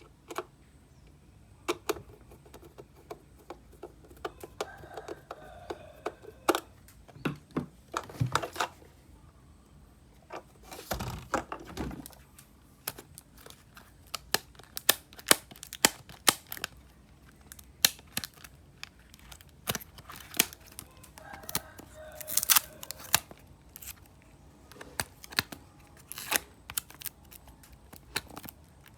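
Hands unboxing a toy bus and its packaging: many sharp clicks, taps and knocks, with a short stretch of tearing and rustling about eleven seconds in.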